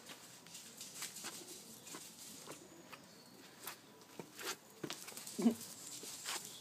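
Six-week-old Finnish Lapphund puppies' claws and paws pattering on wet stone paving: irregular light clicks and taps. A brief low-pitched sound stands out about five and a half seconds in.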